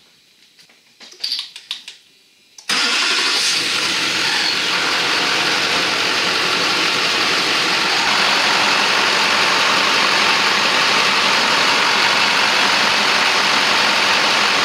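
2004 GMC Sierra 2500HD's LLY Duramax 6.6 L V8 turbodiesel starting suddenly about three seconds in, then running steadily and loudly after a few faint clicks.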